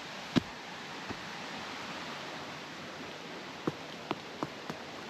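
Steady rushing of a nearby waterfall, with a few sharp knocks over it, the loudest about half a second in and a quick run of four near the end.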